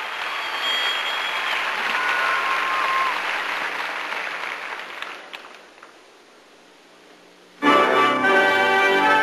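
Crowd applauding, fading out after about five seconds. After a short lull, music for the gymnasts' floor routine starts abruptly near the end.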